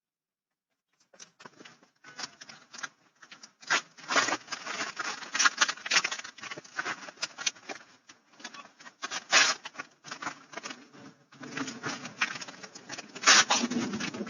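Packages and a bag rustling and crinkling as they are handled and packed, with many sharp crackles, heard through a doorbell camera's microphone. It starts about a second in.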